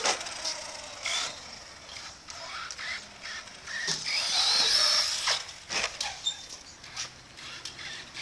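Small electric motor of a 1/36 Losi Micro Highroller RC truck whining, its pitch rising and falling with the throttle, loudest about halfway through. Several sharp knocks are mixed in.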